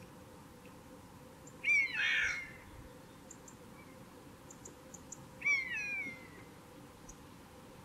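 Common buzzard giving two falling, mewing calls about four seconds apart.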